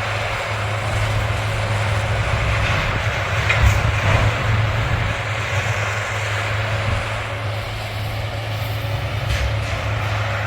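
John Deere 328D skid steer's diesel engine running hard under load while its brush-cutting attachment works through vegetation, with a few louder cracks about three and a half to four seconds in.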